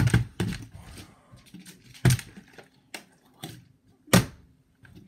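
Plastic water bottles landing with thuds as they are flipped: three strong knocks about two seconds apart, with a few lighter knocks between.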